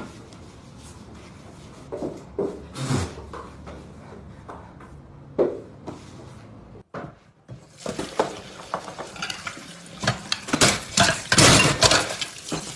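Faint rubbing and occasional knocks of a cloth wiping a floor, then, after about seven and a half seconds, a busy clatter of dishes, pots and cutlery being handled at a kitchen sink.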